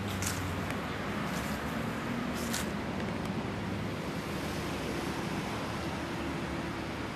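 Steady outdoor street ambience: an even hiss of traffic and wind on the microphone, with a car driving by.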